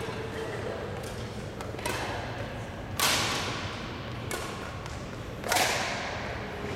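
Badminton rally: rackets striking a shuttlecock, a string of sharp smacks that ring on in the hall. The two loudest come about three seconds and five and a half seconds in.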